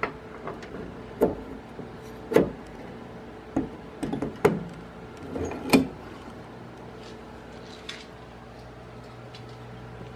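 A back door being opened carefully: a string of knocks, latch clicks and rattles, about six in the first six seconds, over a steady low hum.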